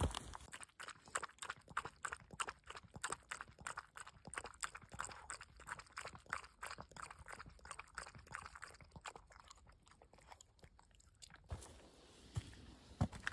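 A Maltipoo lapping water from a plastic bowl: quick wet laps, about four a second, that stop about eleven and a half seconds in.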